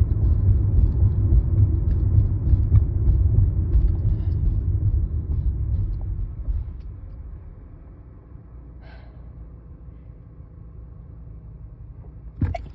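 Low road rumble inside a moving car, which dies away about six to seven seconds in and leaves a quieter steady low hum. Near the end comes a sudden sharp breath, the build-up to a sneeze.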